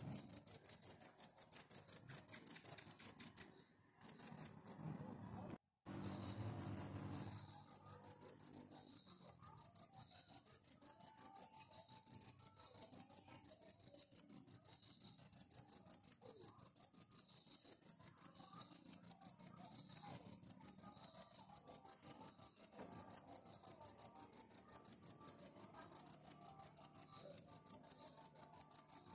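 Cricket chirping in a steady, high-pitched trill of fast, even pulses, briefly broken off about four to six seconds in.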